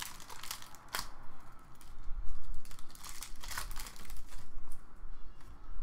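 Foil wrapper of a 2015-16 Upper Deck Champs hockey card pack crinkling and tearing as it is ripped open by hand. It comes as several short rustles, the loudest about three and a half seconds in.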